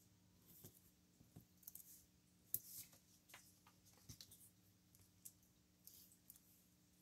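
Faint small clicks and rustles of foam adhesive dimensionals being peeled off their paper backing strip and handled, with one sharper tick about two and a half seconds in, over a faint steady hum.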